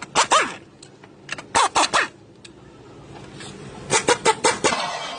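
Clusters of sharp knocks and clanks, as of metal parts or tools being handled: one near the start, three in quick succession about a second and a half in, and a rapid run of several about four seconds in.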